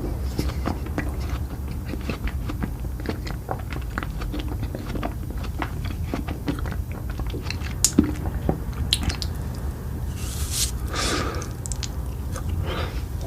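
Close-miked eating: biting and chewing with many small crisp clicks, and a couple of longer hissing noises near the end, over a steady low hum.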